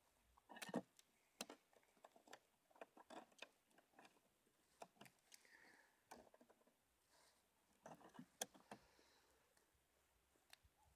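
Faint handling noise: irregular light clicks and taps, with no steady hum of bees.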